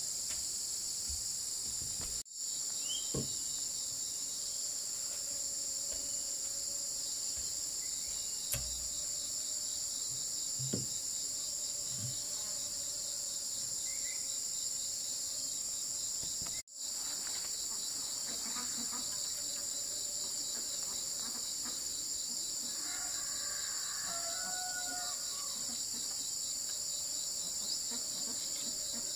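Steady, high-pitched chorus of insects buzzing and trilling, with a few faint knocks underneath. It cuts out for an instant twice.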